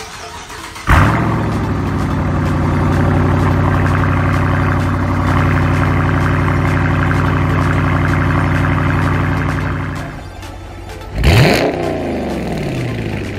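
2017 Dodge Charger R/T's 5.7-litre Hemi V8, heard at the exhaust tip through a mid-muffler delete, fires on a cold start about a second in and settles into a steady fast idle. Near the end it starts again with a short rev that rises sharply and falls away.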